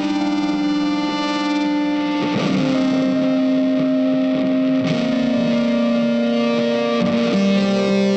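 Background music: long held notes that shift to new pitches a few times.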